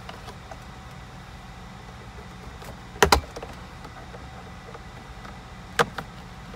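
Plastic retaining clips snapping loose as the black plastic panel under a 2015–2018 GM truck console lid is pried off with a plastic trim tool: a sharp snap about three seconds in and another near the end.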